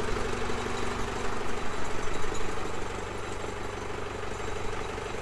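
Large boatyard forklift's engine running steadily at idle, a low even hum that eases slightly about halfway through.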